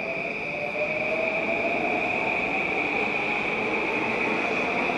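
Electric commuter train at a station platform, running with a steady high whine and a fainter tone that rises slightly in pitch about half a second in, over a steady rumble.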